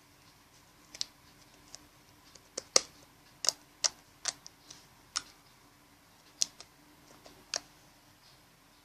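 Homemade slime being squeezed and played with by hand, giving about a dozen sharp, irregular clicking pops.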